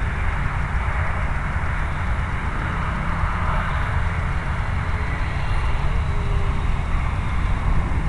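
Wind buffeting the camera's microphone: a loud, ragged low rumble over a steady hiss.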